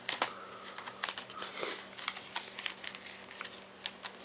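Cardboard-and-plastic phone case packaging being opened and handled by hand: irregular scraping, crinkling and small clicks as the box flaps and contents are worked free.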